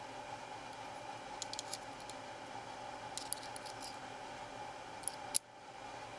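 Light clicks and ticks of a precision screwdriver and small metal parts against the plastic trigger box of a WE G39 gas-blowback airsoft rifle, in three short clusters, the sharpest click about five seconds in. A steady hiss and hum lie under them.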